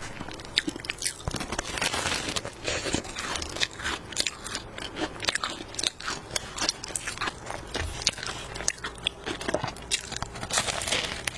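Close-up chewing and crunching of a cream puff's flaky, crisp pastry crust, with many irregular small crackles as it is bitten and chewed.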